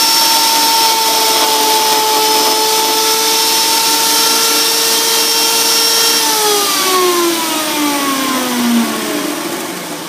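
3/4 hp, 3450 RPM electric motor of a homemade lathe with wooden bearings, running with a steady whine and hiss, then switched off about six seconds in and winding down with a falling pitch.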